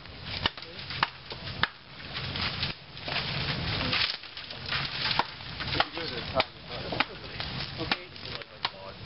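Branches and sticks being handled and broken for a debris shelter: irregular sharp cracks and knocks of wood on wood, with a stretch of rustling brush near the middle.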